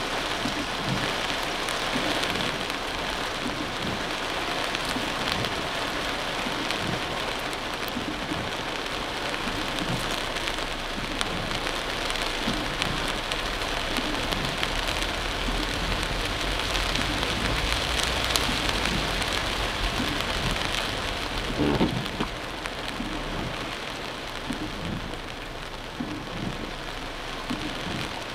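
Heavy rain beating on a car's roof and windshield, heard from inside the cabin as a steady, loud hiss. A low rumble runs beneath it through the middle, and there is one brief louder knock about three-quarters of the way through.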